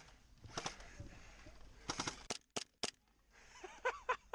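Airsoft guns firing: a few sharp single shots, one about half a second in and a quick cluster of four or five around two to three seconds in, with distant shouting near the end.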